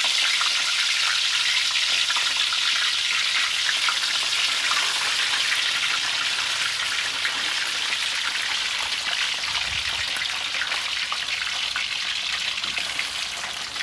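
Whole snakehead fish deep-frying in hot oil: a steady sizzling hiss with fine crackles that eases off slightly toward the end.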